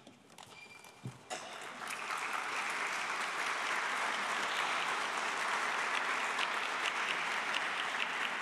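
Audience applauding. It starts about a second in, swells over the next second, then holds as steady clapping.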